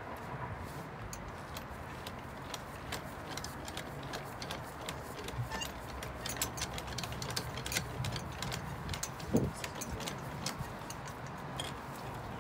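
Scattered light clicks and knocks of people moving about on a hard floor, over a steady low room hum. There is one short low creak about nine seconds in.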